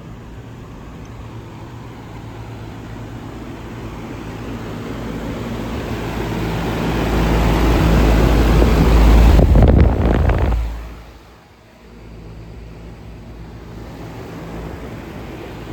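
A vehicle passing close by, its noise building for several seconds and then dropping away sharply, over the steady hum of running air-conditioning condensers.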